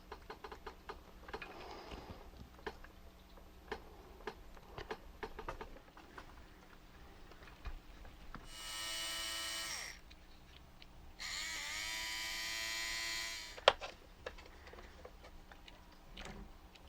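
Small electric motor whirring in two short runs, each spinning up in pitch and then holding steady, about a second and two seconds long, after light clicks of small parts being handled; a sharp click follows the second run.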